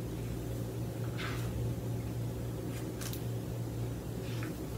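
Steady low background hum, with a few faint, brief soft hissy noises over it.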